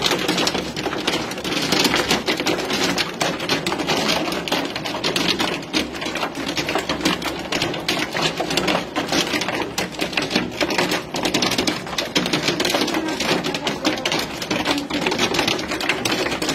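Heavy hail pelting down: a dense, unbroken clatter of countless hailstones striking hard surfaces.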